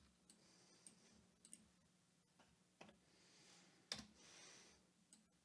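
Near silence broken by a few faint, irregularly spaced computer mouse clicks, the loudest about four seconds in, with soft faint hissy swells between them.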